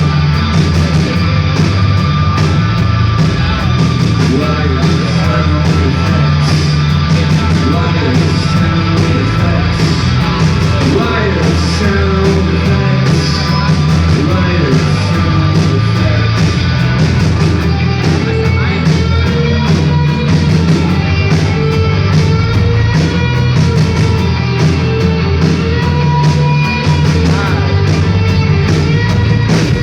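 A live heavy rock band playing loud and continuously, with guitars over a steady, fast drum beat.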